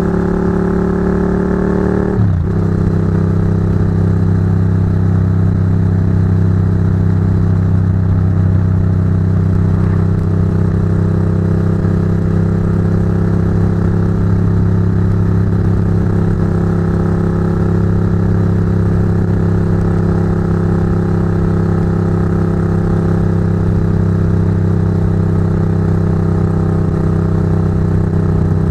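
Ducati GT1000's air-cooled V-twin through Termignoni exhausts, heard close to the pipes. It climbs in pitch under throttle and drops sharply about two seconds in as it shifts up, then runs at a steady cruise.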